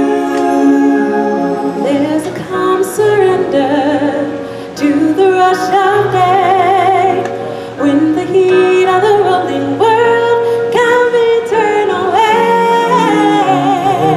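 Stage-musical song: held, wavering sung notes moving up and down a melody over full orchestral accompaniment.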